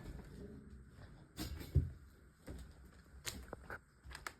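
Footsteps on the floor of an empty room, with scattered knocks and clicks: a handful of irregular thumps, the heaviest a little under two seconds in.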